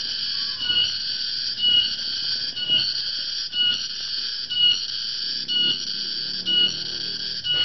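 Tonggeret (garengpung) cicada calling loudly: a continuous high drone with a brighter pulse about once a second. In Java this call is taken as the sign that the dry season is coming.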